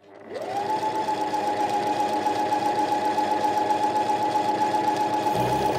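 Household electric sewing machine starting up, its motor winding up to speed within about half a second, then stitching steadily with a fast, even rhythm and a steady whine.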